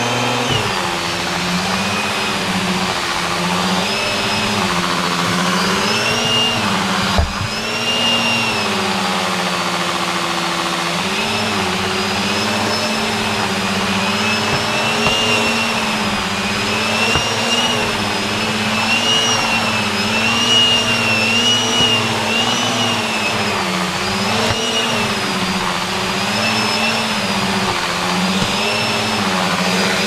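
Maytag Satellite vacuum cleaner running while vacuuming, its motor hum and high whine wavering up and down in pitch every second or two. A single knock about seven seconds in.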